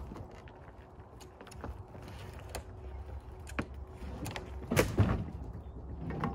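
Knocks and thuds of a heavy white oak round being levered along a wooden trailer bed with a hookaroon, the loudest thuds about five seconds in.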